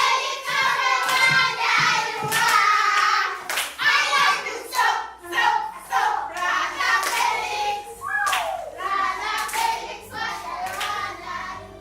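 Group of children singing together while clapping their hands in rhythm.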